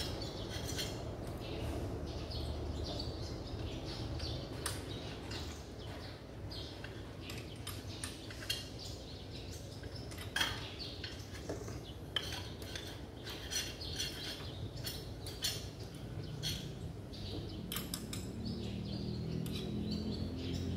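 Irregular light metallic clicks and clinks of hand tools on the valve adjusters of a Mitsubishi 8DC11 V8 diesel engine as the valve clearance is set.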